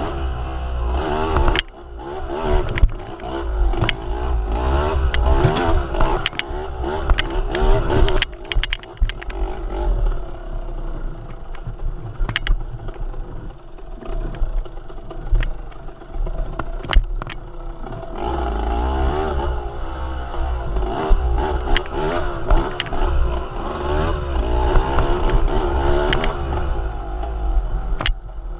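A motor vehicle on the move, its engine running with shifting pitch over a heavy low rumble, and scattered clicks and rattles.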